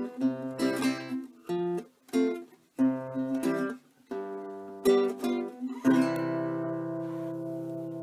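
Acoustic guitar music: strummed chords in short phrases with brief breaks, ending on one long held chord that rings for about the last two seconds.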